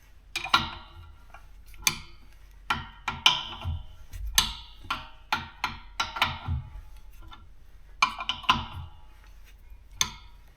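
A metal wrench clinking and tapping against threaded metal fittings while a fitting on an air compressor's pressure switch is tightened: irregular sharp metallic clinks, each ringing briefly, about a dozen of them, with a pause in the middle.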